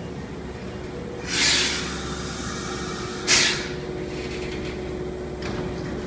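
Hankyu 3000 series electric train pulling to a stop at a platform. Two bursts of compressed-air hiss come from its pneumatic equipment, a longer one about a second in and a shorter, sharper one about two seconds later, over a steady hum.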